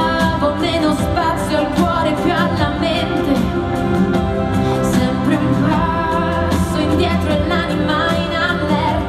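A woman singing a slow pop ballad at a microphone, over a full band and keyboard backing.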